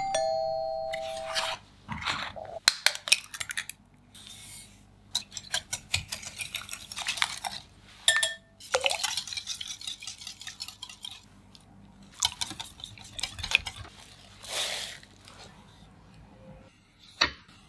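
Kitchen prep sounds: a wire whisk clicking rapidly against a glass bowl as it beats egg yolks, with clinks and scrapes of utensils and a ladle stirring batter in a glass bowl. A short ringing tone opens the sequence.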